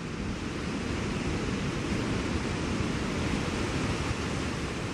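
Steady rushing of surf and wind on a rocky shore, swelling slightly over the first couple of seconds.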